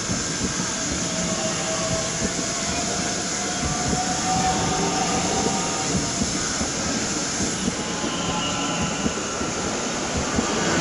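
Bombardier Talent 2 electric multiple unit running past, with a faint electric whine that drifts a little in pitch over steady rolling noise and wheels clicking on the track.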